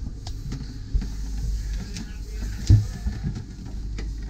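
Footsteps and handheld-camera knocks going down a spiral staircase: a few dull thumps, the loudest about two and a half seconds in, over a low steady rumble.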